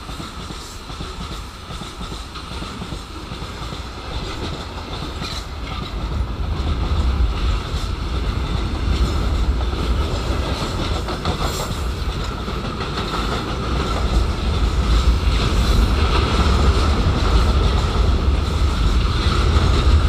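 Freight train's gondola wagons rolling past close by: a steady rumble with the wheels clattering over the rail joints, growing louder from about six seconds in.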